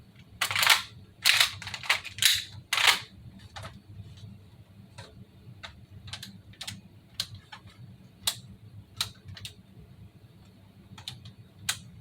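Clicks and clacks of an unloaded airsoft gun being handled in a reload drill: about four loud sharp clacks in the first three seconds, then a run of lighter sharp clicks spaced roughly half a second to a second apart.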